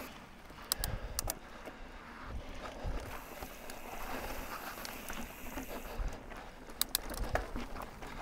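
Mountain bike rolling over dirt singletrack and slickrock: tyre noise on the trail, with sharp clicks and rattles from the bike over bumps, a couple about a second in and a cluster around six to seven seconds in.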